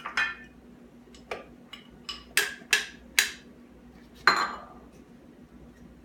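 Hard plastic clicking and knocking as a personal blender's plastic cup and a small plastic cup are handled and tapped together. There are about six separate sharp taps, the loudest about four seconds in.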